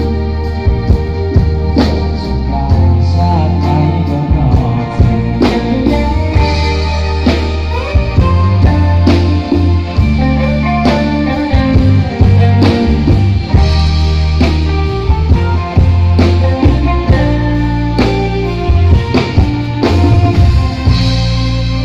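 Live band music over a loud PA, with a heavy bass line, a steady drum beat and electric guitar.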